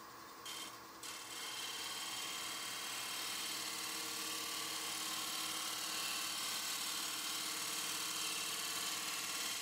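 Bowl gouge cutting the face of a mahogany blank spinning on a wood lathe: a brief touch of the tool about half a second in, then a steady, even shaving noise from about a second in, over the lathe's running hum.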